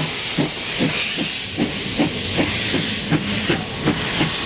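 CK124, a Japanese-built 2-6-2 steam tank locomotive, chuffing at about two to three beats a second under a constant loud hiss of steam.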